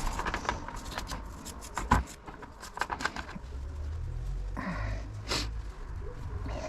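Bicycle rear hub parts being wiped and handled on the bench: rag rubbing and scraping with a run of sharp small metal clicks, and one louder knock about two seconds in.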